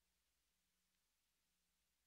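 Near silence: an essentially muted soundtrack with only a faint noise floor.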